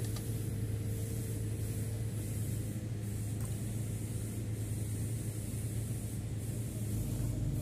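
A heavy machine's diesel engine running steadily with a low, even hum while the load hangs on the hoist.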